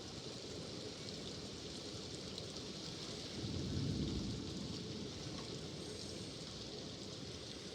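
Steady heavy rain hissing and pattering. A low rumble swells and fades about three and a half seconds in.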